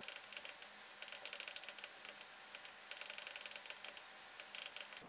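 Faint rapid clicking of a FrSky Taranis Plus radio transmitter's buttons, pressed in several quick runs to step through letters while a name is typed in on its screen.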